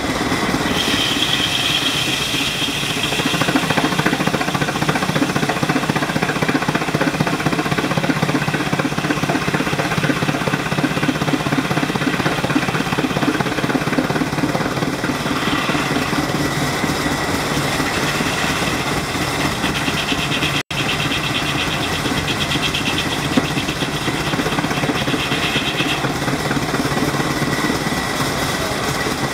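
Antique circular-saw sawmill running steadily: its drive engine, belts and spinning blade make an even, pulsing mechanical sound, with a higher whine that comes and goes several times.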